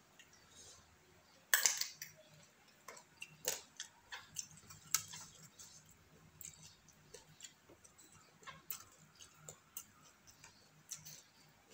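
Close eating sounds: chewing and lip smacks, a scattered run of wet clicks, with one sharper, louder knock about one and a half seconds in.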